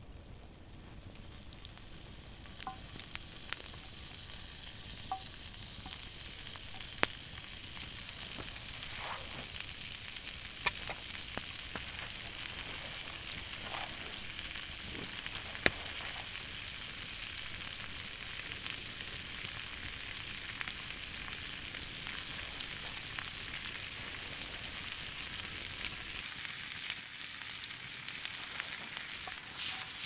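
Food sizzling steadily in a cast-iron frying pan set on a burning log fire, with sharp crackles now and then.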